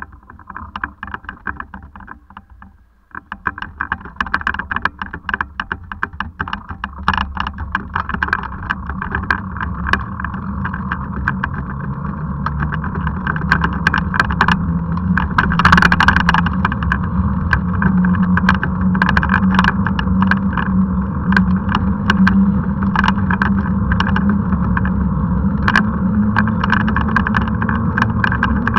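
Off-road handcycle rolling along tarmac: a steady rumble of tyres and drivetrain with many small rattles and clicks. It goes quiet briefly about three seconds in, then builds up over the next dozen seconds as the handcycle pulls away and gathers speed, and holds steady after that.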